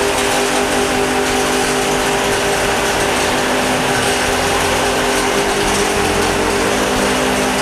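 Maize milling machine running at steady speed: a loud, even mechanical drone with a constant hum and no change in pitch.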